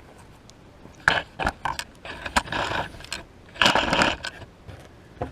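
Handling and rummaging noises: a series of sharp clicks and knocks mixed with scraping and rustling, busiest about a second in and again near four seconds.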